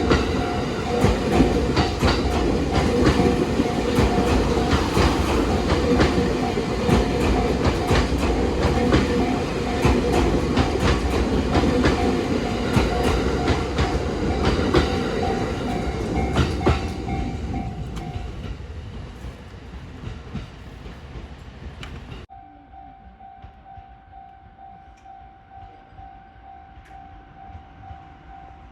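Electric commuter train passing over a Japanese level crossing, its wheels clicking over rail joints, while the crossing's warning bell rings in a steady repeating pattern. The train fades out about two-thirds of the way in, and after an abrupt cut only the crossing bell is left.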